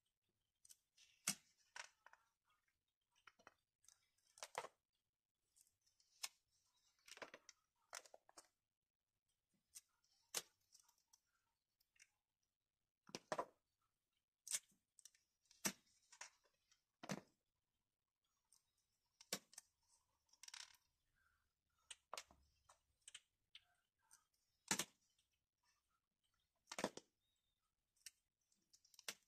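Plastic sleeve pages and tissue interleaves of a portfolio display book being handled and turned: scattered, faint crisp crackles and rustles with short quiet gaps.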